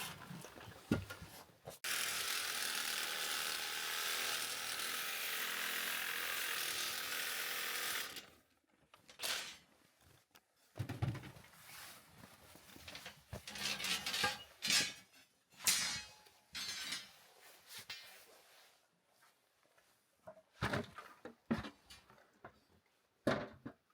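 A power tool cutting steel rebar: a steady hiss that starts suddenly about two seconds in and cuts off about six seconds later, followed by scattered knocks and clanks of metal being handled.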